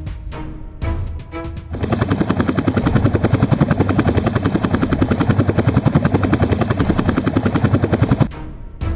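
Helicopter rotor chopping in a fast, steady pulse that starts about two seconds in and cuts off suddenly near the end, with dramatic orchestral music before and after it.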